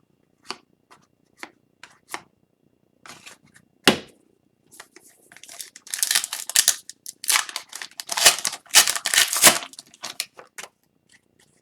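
Trading cards being handled, with scattered light clicks and a sharp tap about four seconds in. This is followed by several seconds of crinkling and tearing, typical of a foil card-pack wrapper being ripped open.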